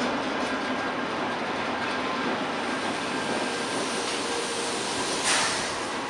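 TGV POS high-speed trainset rolling slowly past along a station platform: a steady rolling noise with a faint low hum, and a brief loud burst of noise about five seconds in.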